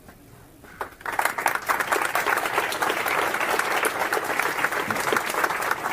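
Audience applauding in a lecture hall at the end of a talk, many hands clapping, starting about a second in and continuing steadily.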